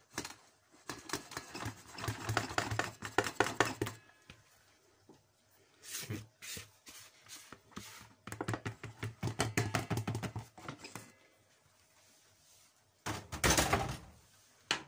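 Flour being poured and shaken out of a plastic bowl into a stand mixer's stainless steel bowl. Two stretches of rapid tapping and rustling, a few seconds each, with a shorter louder burst near the end.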